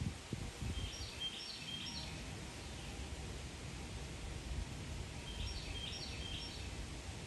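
A small bird sings the same short phrase of quick high notes twice, about four seconds apart, over a steady low rumble of wind on the microphone.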